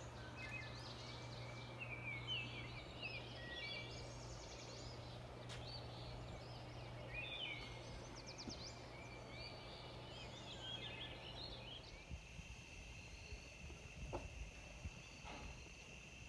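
Several birds singing, with quick varied phrases, over a low steady hum. About twelve seconds in, the sound cuts to a steady trilling chorus of insects, with a few faint knocks.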